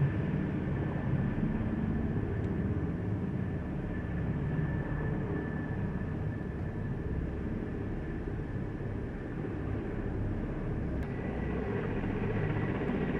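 Helicopters flying past in a formation of four, a steady low drone of rotors and engines.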